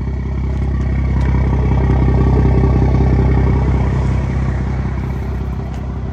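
BMW B58 turbocharged 3.0-litre inline-six running, its sound swelling a little about a second in and settling back. No whistle from the freshly repaired PCV diaphragm.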